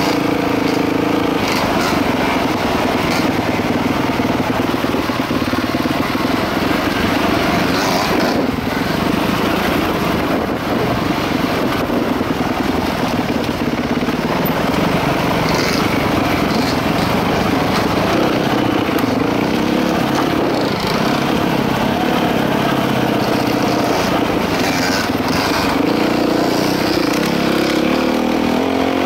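Dirt bike engine running on the trail, its pitch rising and falling with the throttle.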